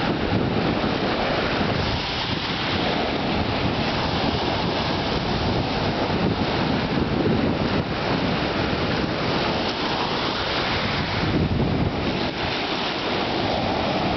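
Ocean surf washing in over a rocky, gravelly shore, a steady rush of water with wind buffeting the microphone.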